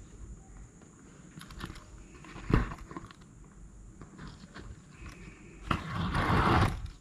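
Hand saddle-stitching through leather: light ticks and one sharp knock a few seconds in, then about a second of loud scratchy rasping near the end as the thread is drawn through the stitching holes and pulled tight.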